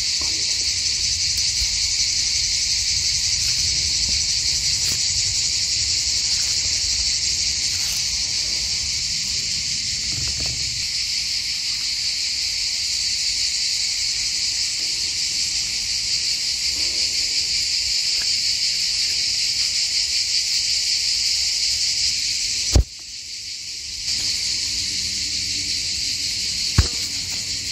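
Dense, steady chorus of insects, a continuous high buzz. A sharp click comes about three-quarters of the way through, the chorus dips for a moment after it, and another click follows near the end.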